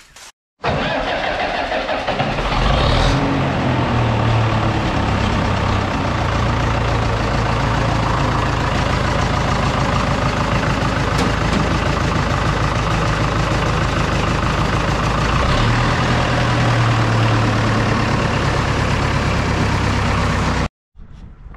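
Oliver 66 diesel tractor's four-cylinder diesel engine running steadily and loudly. The sound cuts in abruptly about half a second in and stops abruptly near the end.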